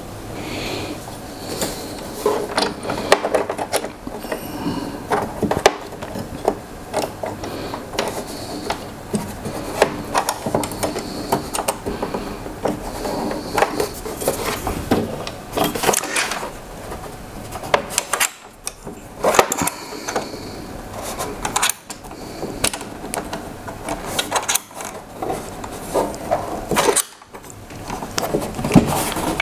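Hands fitting the metal TV-mount brackets and their bolts on the back of a flat-screen TV: an irregular run of clicks, taps and scraping of metal parts.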